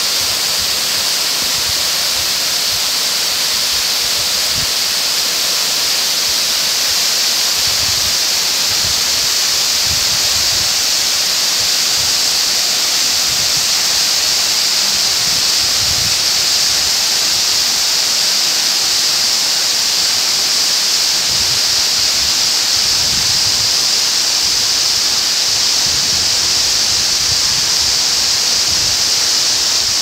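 Tall waterfall plunging onto rock: a loud, steady rush of falling water with a strong high hiss, and soft low rumbles now and then.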